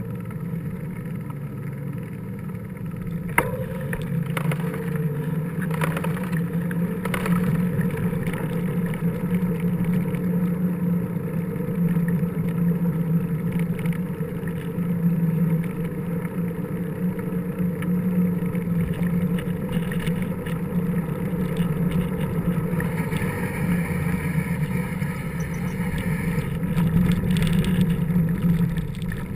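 Steady, muffled low rumble of a mountain bike riding along, tyre and wind noise picked up by a bike-mounted action camera, with a few sharp knocks from bumps a few seconds in.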